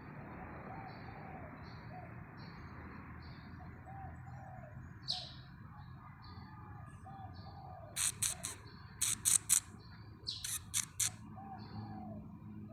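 Squirrel calling: a steady run of short high chirps, about two a second, with a burst of several loud, sharp calls about two-thirds of the way through.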